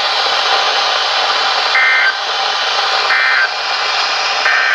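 NOAA Weather Radio end-of-message code: three short bursts of two-tone SAME data, each about a third of a second long and spaced about 1.3 seconds apart, over steady radio static hiss. This is the EAS end-of-message signal that closes the tornado watch broadcast.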